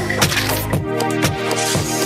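Upbeat electronic background music with sustained chords and a steady beat, a kick drum about twice a second.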